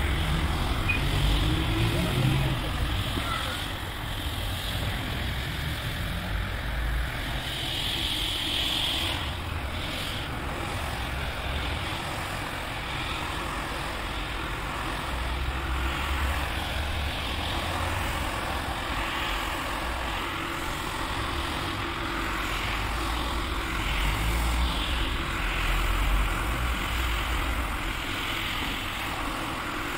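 Single-disc rotary floor scrubber running steadily, its motor humming and its brush scrubbing foamy shampoo into a wet rug, the low rumble swelling and easing as the machine is swung across it.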